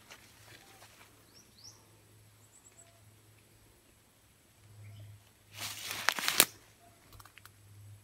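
Dry leaves and undergrowth rustling and crackling as they are brushed or handled, in one loud burst of about a second just past the middle, with a few faint bird chirps before it.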